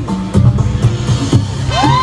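Wrestler's entrance music played loud over an arena's sound system, with a heavy, even beat.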